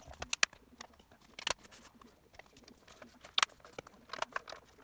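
Irregular sharp clicks and taps as a laptop screen's bottom trim strip is pressed and snapped into place, the loudest double click about three and a half seconds in.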